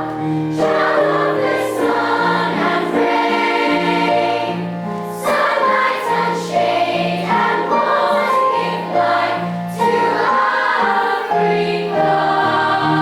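A choir singing in several parts, holding chords that change about once a second.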